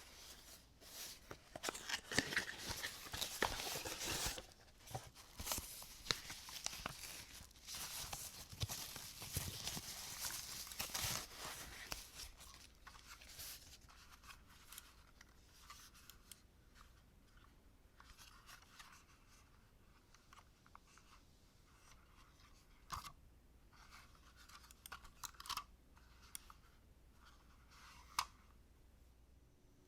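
Mouse packaging being opened and handled: rustling and tearing of paper and plastic for the first twelve seconds or so, then quieter handling with a few sharp clicks.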